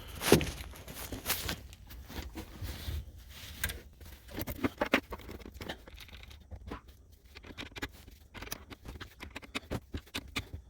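Irregular clicks, taps and scraping of hands handling and fitting parts, with no steady rhythm.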